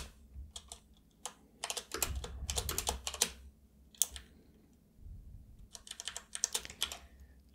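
Computer keyboard typing: quick runs of keystrokes in two bursts, with a few single key taps in between.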